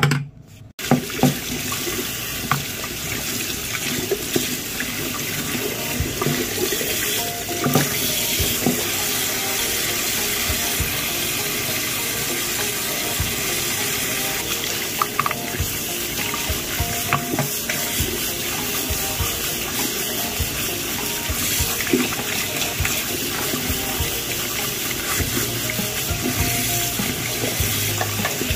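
Tap water running into a sink and splashing over a vacuum cleaner's soft roller brush as it is rinsed by hand. The flow comes on about a second in, and a few knocks sound through it.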